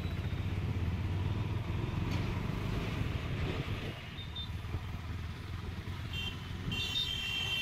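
Road traffic: a steady low engine rumble that is heaviest in the first half and eases off about four seconds in, with brief high-pitched tones near the end.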